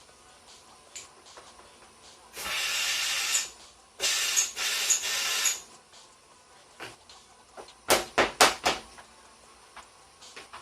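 Two blasts of hissing air from a Drain Cat drain-cleaning tool blowing out an HVAC condensate drain trap, the first about a second long, the second about a second and a half. A quick run of four or five sharp knocks follows.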